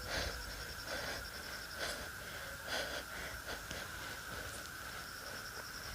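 Night insects, crickets, chirping steadily in a high, pulsing drone, with a few faint short sounds close by about once a second.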